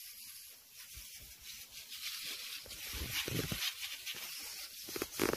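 Faint hiss of a backpack sprayer's wand misting the plants, with rustling and a few soft thumps from about three seconds in.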